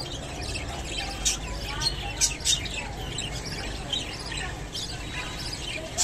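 Budgerigars chirping in many short, scattered calls, with a low steady hum underneath.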